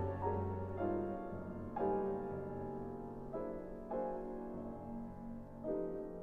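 Soft background music: sustained piano notes, a few chords struck slowly.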